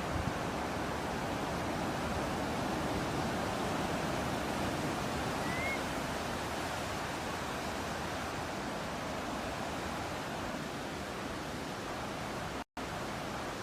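Steady wash of ocean surf and breeze, with one short rising bird chirp about five and a half seconds in. The sound cuts out for an instant near the end.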